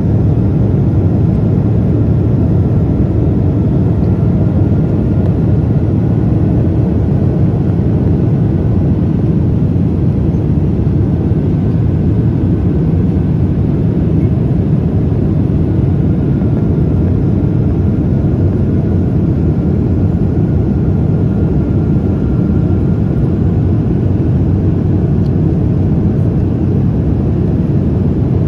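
Steady engine and air noise of a Boeing 777-200ER heard inside the passenger cabin: a constant low rumble with a faint whine above it that drifts slightly in pitch.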